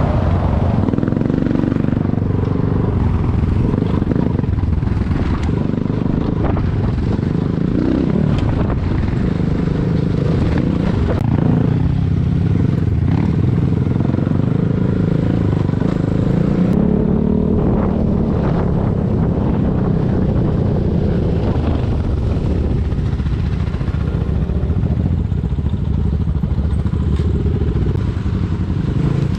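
Enduro motorcycle engine running at shifting revs, its pitch rising and falling with the throttle. Occasional short knocks and clatter come through over it.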